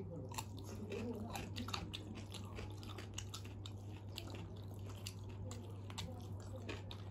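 Close-up mouth sounds of people eating: chewing with many short wet clicks and crisp crunches from bites of raw cucumber slices, over a steady low electrical hum.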